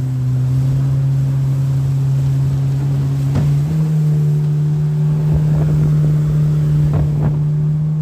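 Outboard jet motor pushing a jon boat upriver, running steadily; its hum steps up in pitch about three and a half seconds in. Water rushes past the hull underneath.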